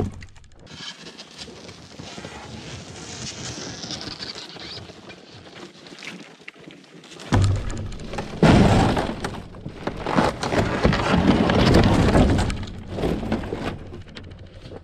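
Wooden ice shack being broken up: boards and panels cracking and crashing. A sharp crash at the start, a quieter stretch, then a long run of loud breaking in the second half.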